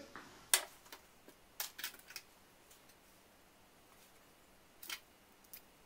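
About six small, sharp clicks and taps of hard little parts being handled on a wooden workbench: a violin tailpiece, its plastic tail gut and the gut's small threaded nuts. One click comes about half a second in, three close together around two seconds in, and two near the end, with quiet room tone between them.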